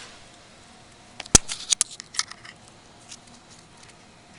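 A quick cluster of sharp clicks and taps from hard objects being handled, loudest about a second and a half in, followed by a few faint ticks.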